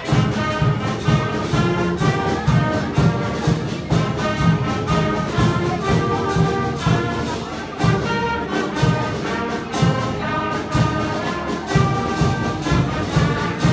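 Intermediate school concert band of woodwinds, brass and percussion playing a piece, with brass melody over a steady low beat about twice a second.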